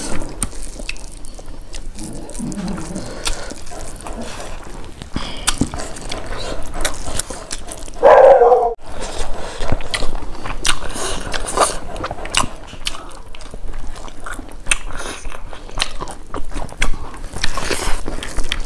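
Close-miked eating sounds: wet chewing and lip smacking as rice and beef curry are eaten by hand, with soft squelches of fingers mixing rice and curry. Many quick clicks and smacks, and one brief louder sound about eight seconds in.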